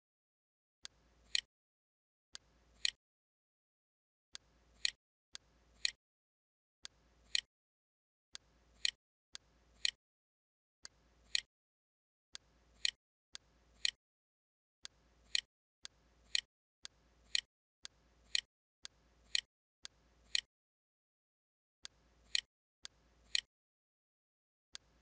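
Computer mouse clicking over and over, about once a second: each time a soft click followed about half a second later by a sharper one, with dead silence between.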